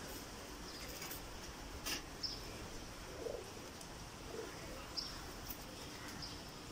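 Pigeons cooing softly, with a few short high chirps of small birds and several sharp clicks as colocasia leaves are cut from the plant.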